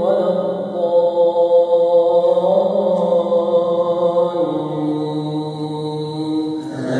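A man reciting the Quran aloud in a melodic chanted style during Taraweeh prayer, holding long drawn-out notes. The voice steps down in pitch about four seconds in and starts a new phrase near the end.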